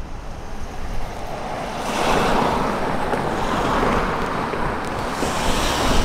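Wind gusting across the microphone, a rushing noise that swells about two seconds in and again near the end.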